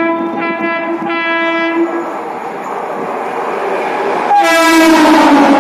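WAP-7 electric locomotive's horn sounding in a few joined blasts, then, after a short gap filled with the rising rumble of the approaching train, a louder blast about four seconds in whose pitch drops as the locomotive passes at speed.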